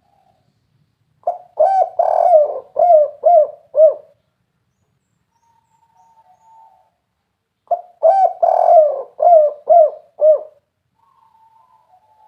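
Spotted dove (tekukur) cooing its 'kuk 3' song. Two phrases of about six cooing notes each, the second coming about six seconds after the first.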